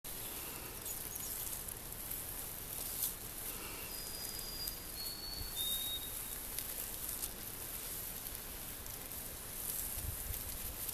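White-throated sparrow singing: three long, clear whistled notes about four seconds in, each held at one pitch and each a little lower than the one before. Beneath it there is a faint steady outdoor hiss with a few soft clicks.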